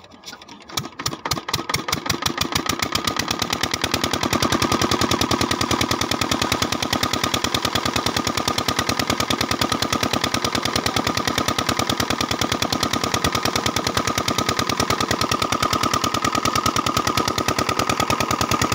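Miniature model diesel-engine water pump running: a rapid, even chain of firing beats that quickens and grows louder over the first few seconds after starting, then settles into a steady fast rhythm as the pump delivers water.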